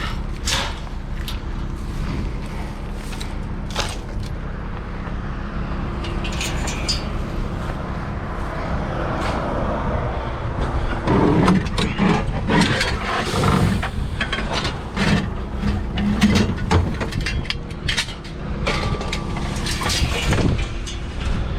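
Steady engine hum from an idling vehicle, with scattered clicks and knocks of items being handled; the handling gets busier and louder about halfway through, with clattering and scraping.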